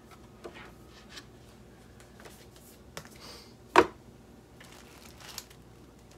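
Paper and cardboard being handled: scattered rustles and light ticks, with one sharp knock a little under four seconds in.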